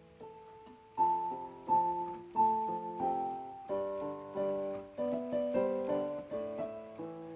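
Background piano music: a slow melody of single struck notes with chords underneath, growing busier about halfway through.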